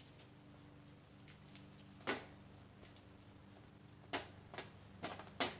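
A few short, sharp taps of plastic toys knocking against a metal baking tray: one about two seconds in, then four close together near the end, over a faint steady hum.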